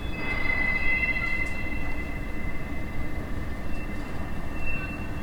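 Rail vehicle wheels squealing as they move through a depot: several high, steady, whining tones sound together over a low rolling rumble, loudest a little after the start.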